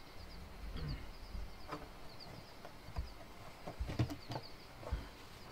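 A plastic drum being handled and set down on the ground: a few knocks and thuds in the second half, the loudest about four seconds in. Small birds chirp steadily in the background.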